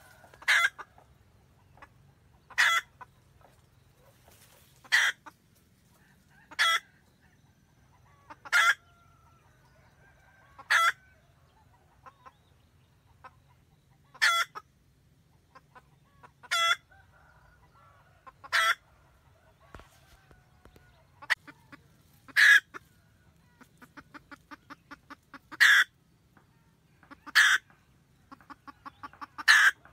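Red junglefowl hen cackling, the call a hen uses to summon the rooster: loud, sharp single cackle notes about every two seconds. In the last third, quicker runs of short clucks build up into some of the cackles.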